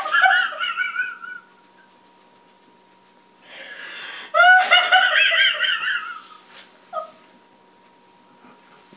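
A woman's high-pitched laughter during a laughing fit, in two bouts: one dying away in the first second and a half, and a louder one from about four seconds in to about six and a half seconds.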